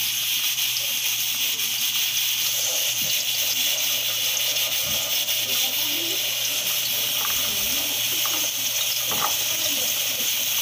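Pressure cooker hissing steadily as steam escapes while the meat inside cooks under pressure.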